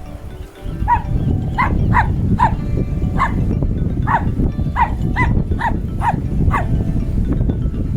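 A series of about a dozen short animal calls, each one falling in pitch, coming every half second or so over a steady low rumble.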